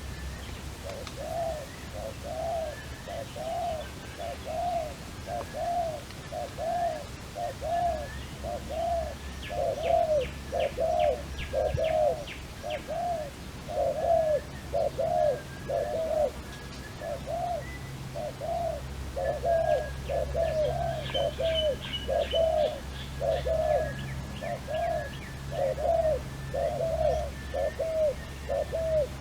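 Dove cooing in a long, even run of short notes, about one and a half a second. A smaller bird twitters in quick high trills twice along with it.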